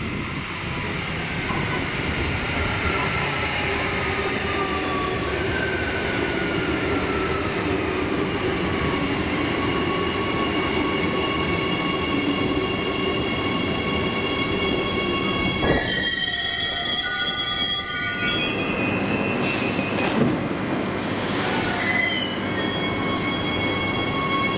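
Bombardier-built 4000 Class electric train braking into the platform, its high whine falling slowly in pitch as it slows, then a steady high whine while it stands.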